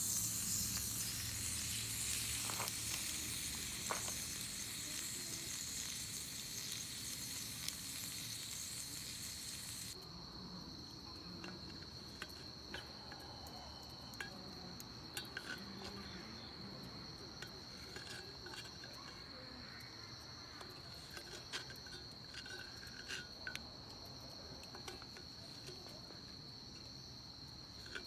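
Insects trilling on one steady high pitch throughout. A hissing rush of noise covers it for about the first ten seconds and stops abruptly. Scattered light clicks follow.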